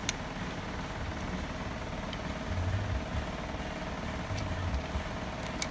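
Steady low mechanical hum with a faint even tone, with a few short clicks as a screwdriver works spade wire connectors off a brass solenoid valve.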